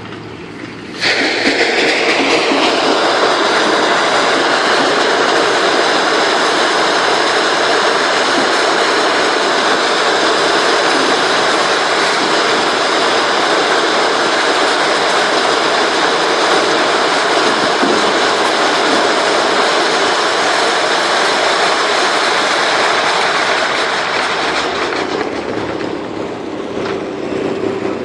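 Loud, steady mechanical clatter and rumble of heavy stone-handling machinery, starting abruptly about a second in and easing off near the end.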